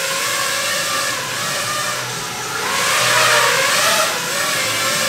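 5-inch FPV racing quadcopter's motors and propellers whining, the pitch wavering up and down with the throttle. It swells louder and higher for about a second, around three seconds in.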